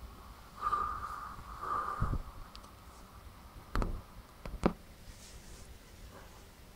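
Faint background hiss with two brief hazy swells early on, then a few sharp short knocks about two thirds of the way in, the last the loudest.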